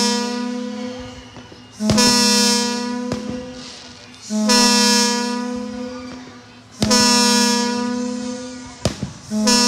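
Two-tone air horn from the fire station sounding long blasts about every two and a half seconds, each starting loud and fading. Sharp firework bangs go off between the blasts.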